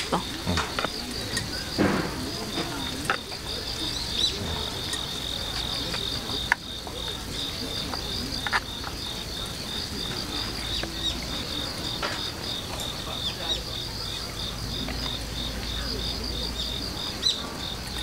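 Insects chirping in a steady, high-pitched train of rapid, even pulses, with a few light clicks of chopsticks against wooden plates.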